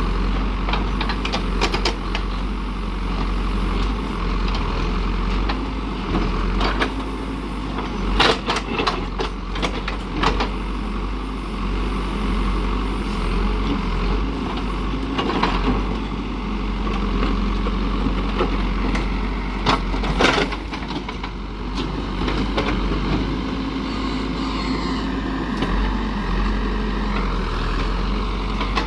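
Diesel engine of a heavy construction machine running steadily, with several sharp knocks and clanks, the loudest about eight to ten seconds in and again about twenty seconds in.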